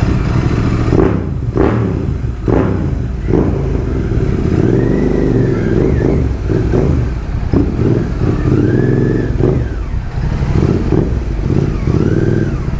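Royal Enfield GT650's 648 cc parallel-twin engine through a loud exhaust, revved up and down repeatedly while riding.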